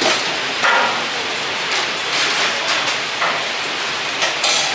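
Fast-food serving-line noise: a steady hiss with a few clinks and scrapes of metal serving spoons against stainless-steel food pans.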